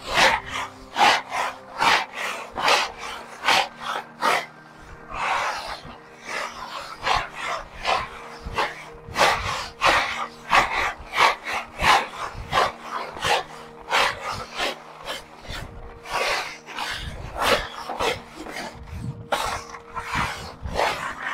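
Dry tiger nuts being rubbed and raked by hand across a wooden screen tray, a rattling scrape about twice a second. The friction knocks the soil off the nuts, which falls through the screen with the small nuts.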